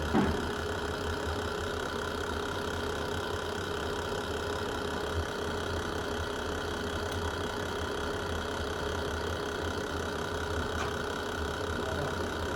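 Wood fire burning in a fireplace: a steady low rumble with a few scattered crackling pops.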